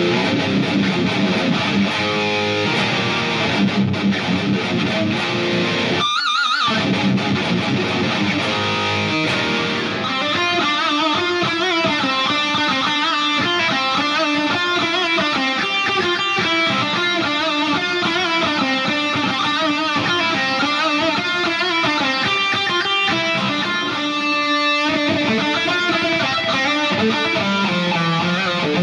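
High-gain distorted electric guitar, an ESP EII Arrow through a Line 6 POD HD Pro's Treadplate amp model and an EVH 5150III 2x12 cabinet, playing metal riffs, then fast single-note melodic lines from about ten seconds in. Heard from the cabinet through the camera microphone.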